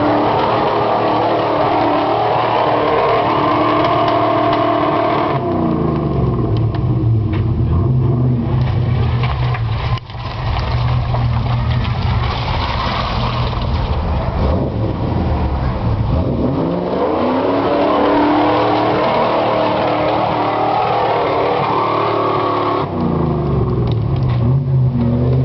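V8 engine of an off-road vehicle working hard on a muddy hill climb. It is held at high revs, falls to a lower, steady pitch about five seconds in, climbs back to high revs from about sixteen seconds, and drops again near the end.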